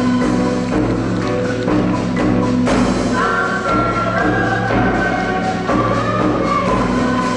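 Live instrumental music from a school concert ensemble: held chords over a steady bass, with light percussion keeping the beat.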